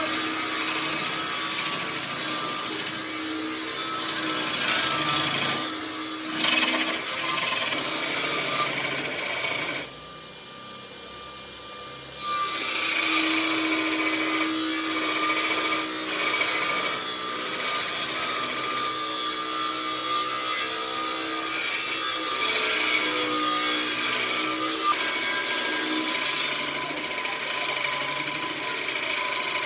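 A power tool working wood, with a steady motor tone under rough scraping and abrading. It stops for about two seconds about a third of the way in, then starts again.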